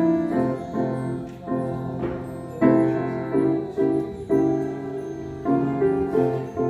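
Kawai grand piano played: a series of chords struck one after another, each left to ring and fade.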